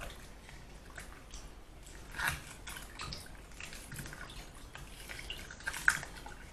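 Hands squashing rough-cut onion in a bowl of salt-water brine: small irregular splashes and drips, the sharpest splash near the end.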